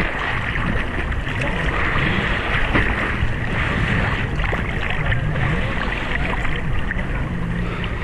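Sea water sloshing and lapping around an action camera held at the surface, a steady wash of noise with no break.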